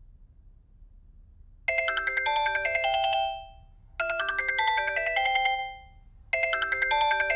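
Mobile phone ringtone: a short tune of bright notes that plays three times with short pauses between, starting a couple of seconds in after a quiet start.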